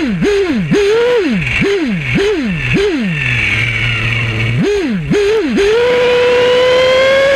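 Nova P5 nitro engine of a radio-controlled car revving in quick throttle blips that rise and fall in pitch. About three seconds in it drops to a low idle for a second and a half, then blips three more times and climbs into a long, slowly rising high-rev run near the end.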